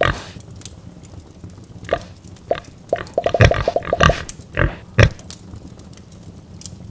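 Pigs squealing and oinking as a cartoon sound effect: a string of short, sharp squeals that come thickest in the middle. A sudden burst of noise at the very start.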